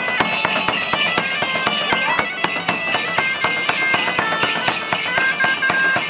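Medieval-style music: bagpipes playing a stepping melody over rapid, steady beats on large double-headed drums.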